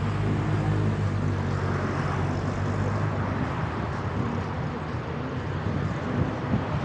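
Car driving in slow city traffic: a steady low engine hum that eases off about halfway through, over continuous road and traffic noise.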